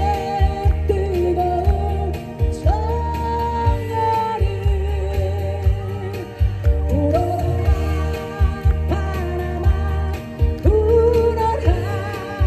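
A woman singing a song into a microphone, accompanied by acoustic guitar and a steady low drum-and-bass beat, amplified through the stage sound system.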